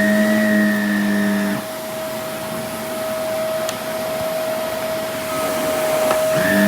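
Vacuum cleaner running with a steady whine. A lower hum and a higher tone drop out about a second and a half in, making it a little quieter, and come back just before the end.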